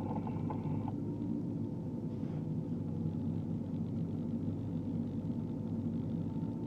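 Manitowoc 2250 crawler crane's diesel engine running at a steady speed, heard from the operator's cab while it holds a load, with a faint steady whine over the low rumble.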